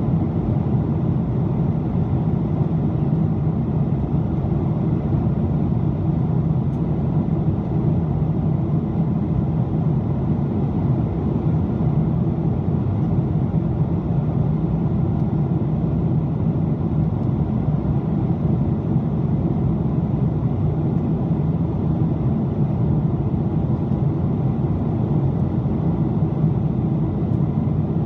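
Steady cabin noise inside a Boeing 777-200 airliner in flight: a constant low drone of the jet engines and rushing air that does not change.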